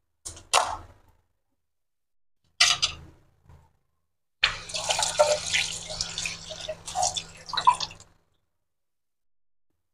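Water splashing and dripping in several short bursts, then a longer stretch of about four seconds near the middle.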